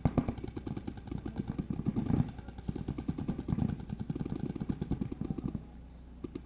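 Paintball markers firing in rapid strings of sharp pops, about ten or more shots a second, with short gaps between bursts; the firing thins out near the end.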